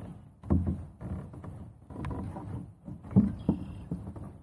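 Handling noise in a plastic fishing kayak as a jugline is hauled in by hand: irregular knocks and rubs of gear against the hull, the sharpest knock about three seconds in.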